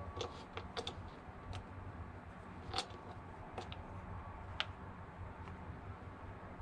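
Plastic clicks and handling knocks as the wing nut is turned and the air filter cover is lifted off an Echo PB-250LN leaf blower: a handful of separate short, sharp clicks, the clearest about three seconds in.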